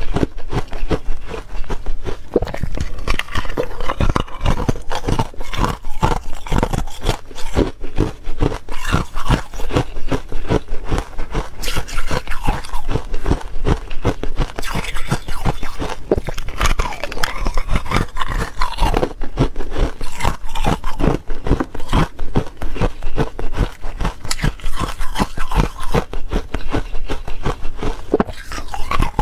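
Close-up crunching of small pellets of 'buckwheat' ice being bitten and chewed, a dense, unbroken run of sharp cracks.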